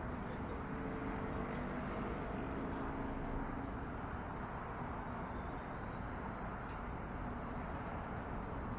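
Steady outdoor rumble of distant traffic, with an engine hum that fades away over the first few seconds.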